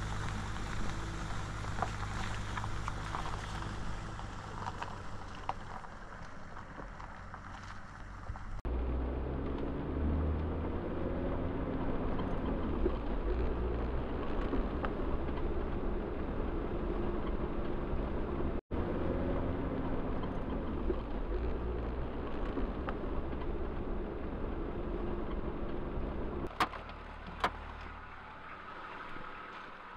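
Off-road vehicle driving along a rough track: a steady low engine hum with tyre and road noise. The sound changes abruptly about nine seconds in, becoming louder and duller, drops out for a moment around the middle, and changes again near the end, where there are a couple of sharp clicks.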